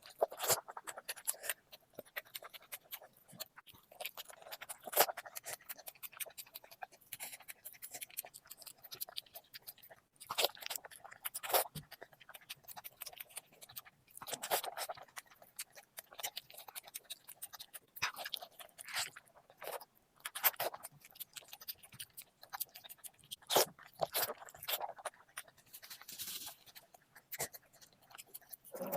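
Close-up eating sounds: a person chewing a meal of rice, curry and roti, with irregular wet mouth clicks and smacks and occasional louder bites.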